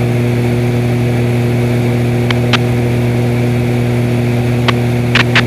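Extra 300's propeller engine droning steadily in the cockpit, one low even tone with its overtones and no change in power. A few short clicks sound about halfway through and again near the end.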